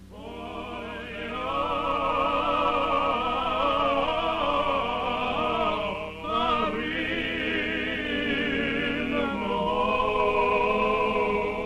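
Liturgical synagogue chant sung in long phrases with a wide vibrato, broken briefly about six seconds in and again near nine and a half seconds.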